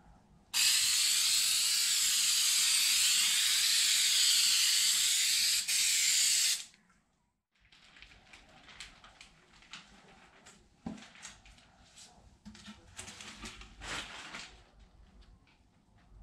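Aerosol can of 3M Super 77 spray adhesive hissing in one continuous spray for about six seconds, with a split-second break near the end. After a short gap come quieter rustling and handling sounds with a few light knocks.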